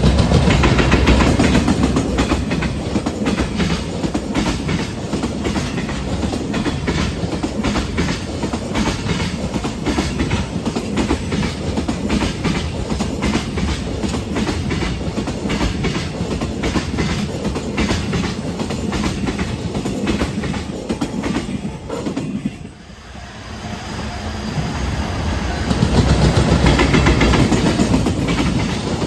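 Container freight train rolling past, its wagon wheels clattering over rail joints in a heavy, rapid clickety-clack over a rumble. The sound drops sharply about three-quarters of the way through, then builds back to full strength near the end.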